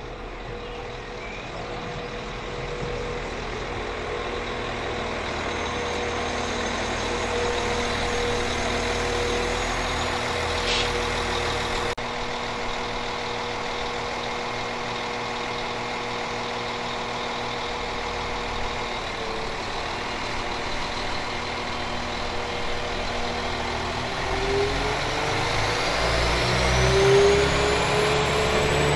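Northern Class 195 diesel multiple unit with its engines running steadily, then revving with a rising whine near the end as it accelerates.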